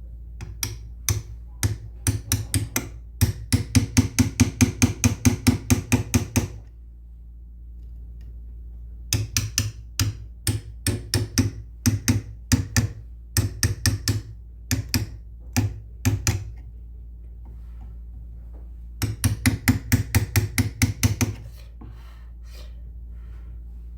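Hammer blows struck in quick, even succession, about three or four a second, in three runs: a long one at the start, another in the middle and a short one near the end.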